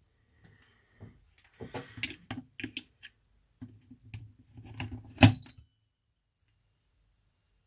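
Clicks, knocks and rustles of an AC power adapter being handled, with one sharp click about five seconds in. After it comes a faint, steady, high-pitched whine from the adapter.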